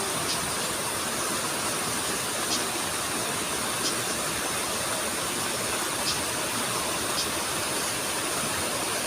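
Steady rush of flowing water, with faint short high-pitched chirps every second or two and a thin steady high hiss above it.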